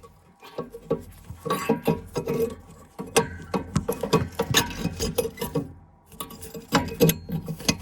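Metal baffles being worked out of a Worcester 28i Junior boiler's heat exchanger with a tool: an uneven series of metallic clinks, knocks and scrapes.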